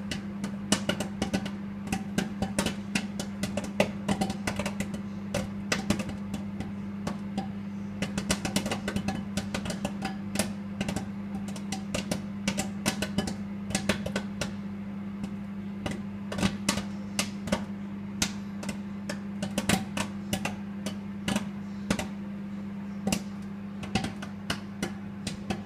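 Popcorn popping inside a running microwave oven: sharp, irregular pops, often several a second, over the oven's steady low hum.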